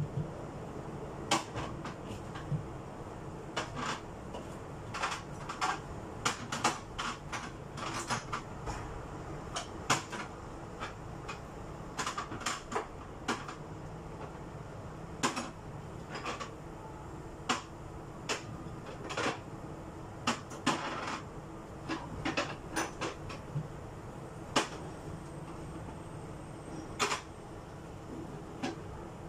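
Things being handled while a refrigerator is cleaned: an irregular run of sharp knocks, clicks and clatters, bunched closely at times and spaced out at others, over a steady low hum.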